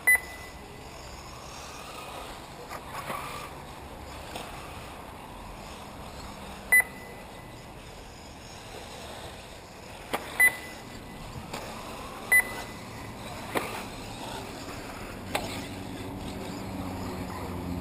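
Short electronic beeps from an RC race lap-timing system, four in all at irregular intervals, each marking a buggy crossing the timing line, over a steady outdoor background.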